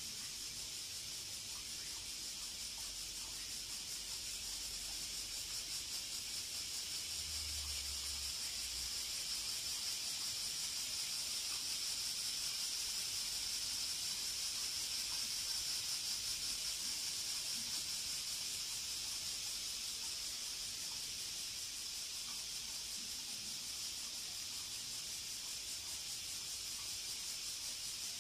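Cicadas singing in a steady, shrill chorus that swells a little in the middle and eases off again.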